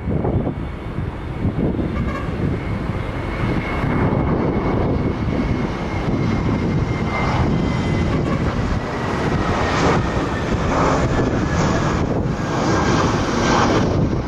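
Airbus A320's CFM56 jet engines at approach power as the airliner flies low on final approach: a deep, steady jet noise with a thin high whine that slowly drops in pitch, growing louder after a few seconds.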